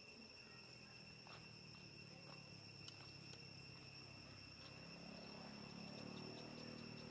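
Faint, steady high-pitched insect chorus, with a low hum growing slightly louder near the end.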